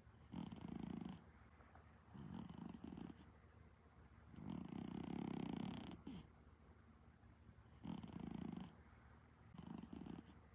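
Exotic Shorthair cat snoring in its sleep: a rasping snore on each breath, five breaths about two seconds apart.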